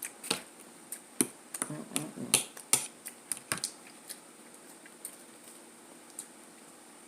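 Eating sounds close to the microphone: a run of sharp mouth clicks and smacks while chewing, thick in the first few seconds, then thinning out to a few scattered clicks.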